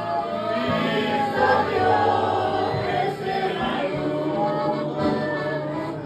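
A man and a woman singing a hymn through microphones, with other voices joining in over instrumental backing.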